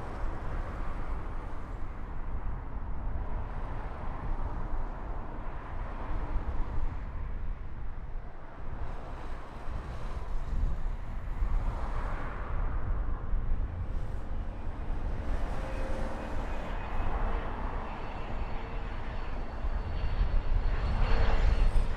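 Embraer Phenom 300 twin-engine business jet on approach, its engine whine growing louder near the end, over a steady low rumble of wind buffeting the microphone.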